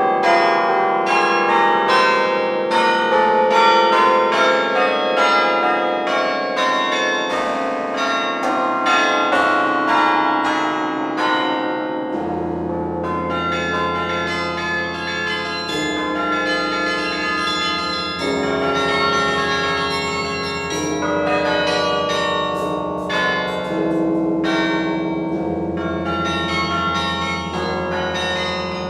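The Rockefeller Chapel carillon is played from its baton keyboard: quick runs of many struck bell notes, each ringing on. About twelve seconds in, deep bass bells join and ring on under the faster upper bells.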